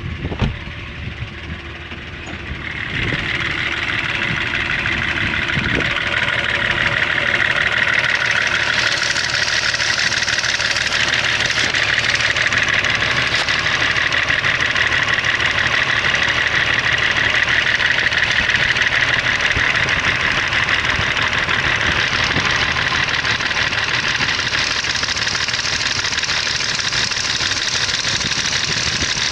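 BMW M51 2.5-litre turbodiesel straight-six idling with a knock in its running, growing louder and brighter about three seconds in. The knock comes from a broken vibration damper on the crankshaft pulley.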